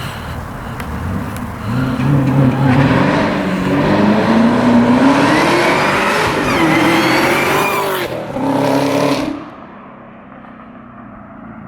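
Chevrolet Camaro ZL1's supercharged 6.2 L LT4 V8, breathing through a Rotofab cold-air intake, accelerating hard. The engine note climbs and steps down through gear changes, then drops off abruptly about nine seconds in.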